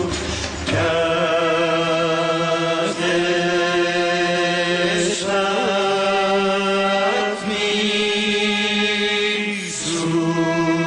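Men's voices singing a Persian song together in long held notes with a slight vibrato, the upper line moving to a new note every two to three seconds above a steady low held note.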